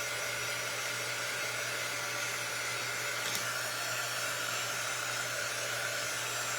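A small electric blower motor running steadily, with a constant whine over an even rush of air.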